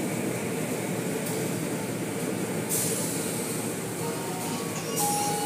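Automatic car wash heard from inside the car's cabin: water spray and cloth curtain strips washing over the glass and body above a steady machinery rumble. A sharper hiss of spray starts about two and a half seconds in, and another near the end.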